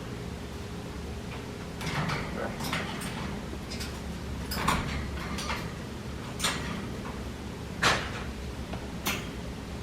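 A young African grey parrot playing with its toys: irregular sharp clicks, knocks and rattles, the loudest about eight seconds in.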